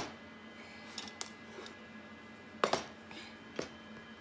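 A few short knocks and taps: two small ones about a second in, a louder double knock about two and a half seconds in, and one more soon after, over a faint steady hum.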